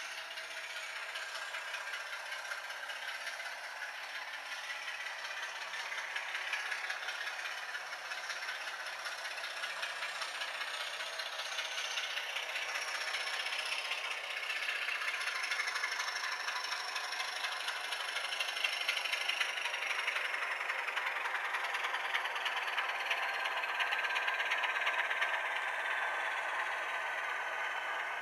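Sound decoder in a Heljan Class 26 model locomotive playing the running sound of a Class 26 diesel engine, heard through the model's small speaker, which has little bass. The engine note shifts up and down in pitch and grows louder over the second half as the locomotive runs past.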